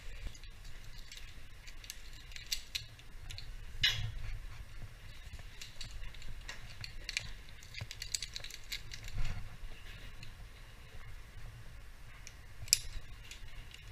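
Metal carabiners and rigging hardware clinking and rattling in scattered light clicks and knocks, with louder knocks about four seconds in, around nine seconds and near the end, over a low steady rumble.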